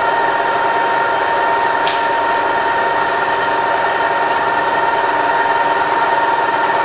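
Rebuilt Bridgeport milling machine's variable-speed head running with the spindle turning and the quill power feed working in reverse: a steady mechanical whine with a strong high tone. Two faint ticks come about two seconds apart as the feed controls are handled.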